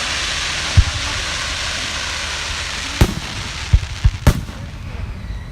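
Aerial fireworks going off: a long hiss fading through the first half, with a boom about a second in, then a boom at about three seconds and a quick run of three more just after.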